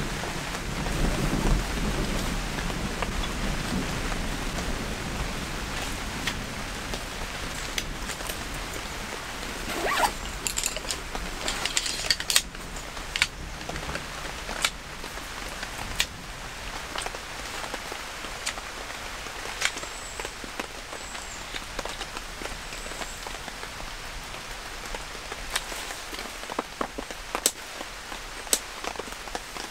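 Steady rain falling on a tent canopy, with scattered sharp taps and clicks, thickest near the middle and near the end. A low rumble is heard in the first few seconds.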